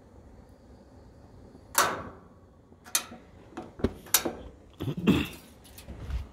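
Irregular sharp knocks and clicks, some with a short metallic ring, from the grill and the camera being handled. They start after a quiet stretch with a faint low hiss, about two seconds in.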